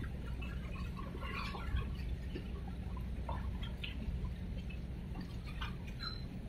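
Harbour water lapping and splashing close by, small irregular splashes and drips over a steady low rumble.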